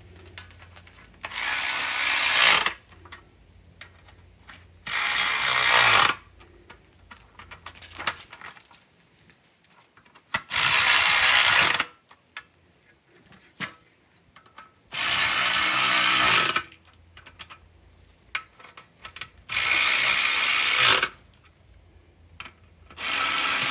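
A power driver running in six short bursts of about a second and a half each, roughly every four seconds, most likely driving the bolts back in on the muffler and heat shield.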